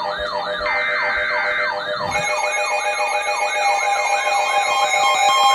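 Electronic yelp-style siren tone, falling quickly and repeating about three times a second. About two seconds in, steady electronic alert tones join it.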